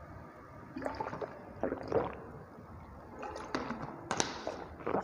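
A person drinking water from a plastic bottle: a few gulps with the water gurgling, then sharp plastic clicks and crackles near the end as the bottle is lowered and handled.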